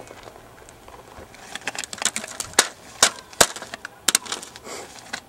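A string of irregular sharp clicks and knocks, beginning about a second and a half in, the loudest four a fraction of a second to half a second apart.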